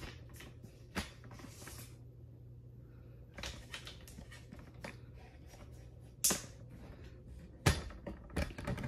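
Scattered knocks and clicks of desk parts being handled and set down, the loudest about a second in and twice between six and eight seconds in, over a steady low hum.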